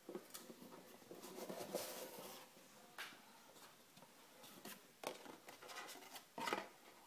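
Faint handling sounds of a shift knob being turned over in the hands: soft rubbing and scraping, with a few light clicks and taps scattered through.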